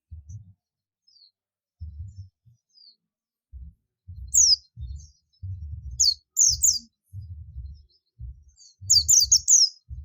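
White-eye (pleci, Zosterops) calling with short, high-pitched, down-slurred chirps. They are sparse at first, come in small clusters partway through, then a quick run of about five near the end. Repeated low thuds run underneath.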